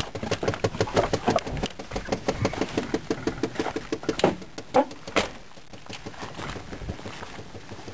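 Chevrolet K1500's 305 V8 running with a rapid, regular knocking tick, about six knocks a second, the engine's 'funky noises'. A few louder knocks come about four to five seconds in, after which the running is steadier and quieter.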